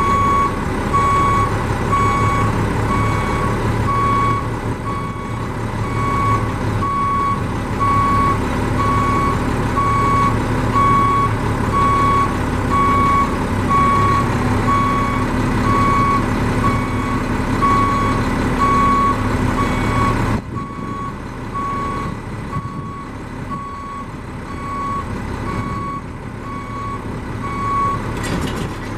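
Alarm beeper sounding steady repeating beeps while the Galbreath roll-off hoist is worked, over the Mack truck's diesel engine running. About two-thirds of the way through, the engine sound drops sharply. The beeping stops near the end, as the hoist arm comes down flat onto the frame.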